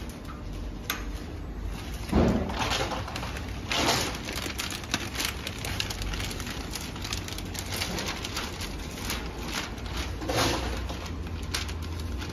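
Clear plastic packing film crinkling and rustling as it is pulled off the roll and fed by hand through a packing machine's guide rollers, with irregular crackles and a few louder bursts, over a steady low hum.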